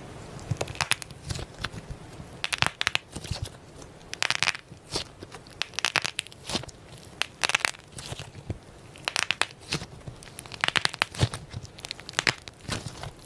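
Slime being squished and worked by hand, crackling and popping in irregular bursts about once a second.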